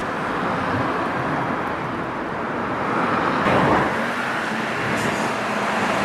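Steady engine noise, like motor vehicles or heavy machinery running, with a louder swell a little past halfway and a faint steady hum near the end.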